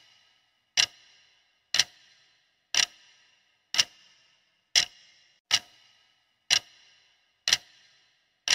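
Clock-tick sound effect marking a quiz answer countdown: nine sharp ticks about a second apart, each followed by a faint brief ring.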